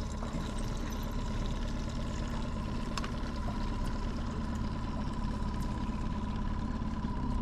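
Boat motor running steadily at trolling speed: an even drone with a constant whine, over the wash of water along the hull.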